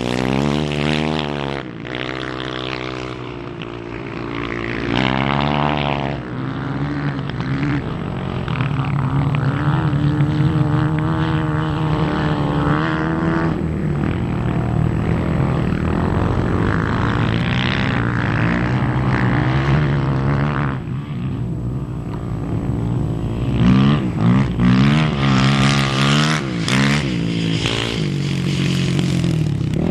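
Dirt bike engine revving hard and easing off again and again as it is ridden through loose sand, its pitch climbing and falling with the throttle and gear changes.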